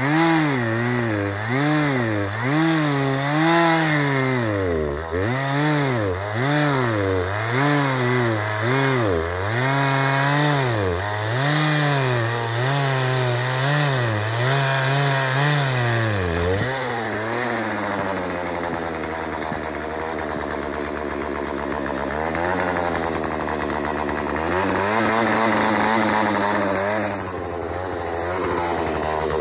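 Chainsaw engine running with its revs rising and falling about once a second for the first half. It then settles to a steadier, lower speed, with a brief rise in revs and a drop again near the end.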